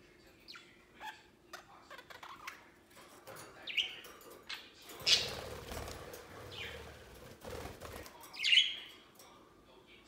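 Budgerigars chirping, with two short, sharp chirps about four seconds in and near the end, the second the loudest. Light clicks and taps of claws and beaks on the wooden perches come early, and a stretch of wing flapping fills the middle as a budgie flies across the play stand.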